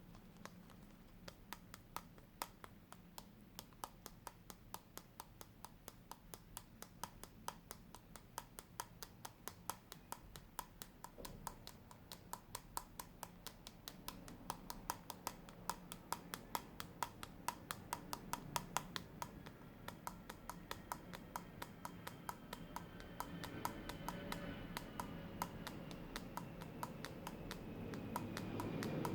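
Close-miked ASMR tapping: quick, crisp taps about four a second, steady and unbroken, with a low background sound swelling toward the end.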